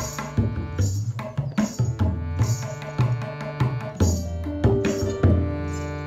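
Tabla drums played in a steady rhythm, the deep bayan strokes booming under sharper strokes on the treble drum. Sustained harmonium notes and plucked harp notes play along.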